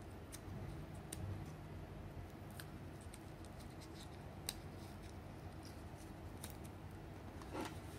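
Paper backing being peeled off adhesive mouse grip tape, with small crackles and ticks as fingers handle the tape, and a short swish near the end.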